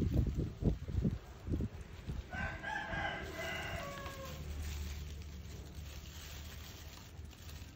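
A rooster crowing once, a held call of about two seconds that falls away at the end, a couple of seconds in. It comes after a few dull knocks at the start.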